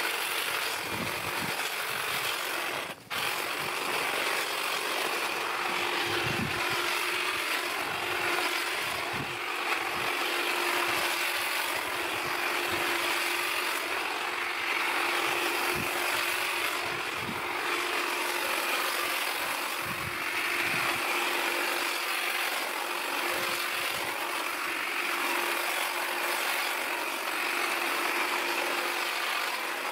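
Black+Decker GTC18504PC 18V cordless hedge trimmer running, its electric motor and reciprocating blades buzzing steadily as they cut through a leafy hedge, with a brief break about three seconds in.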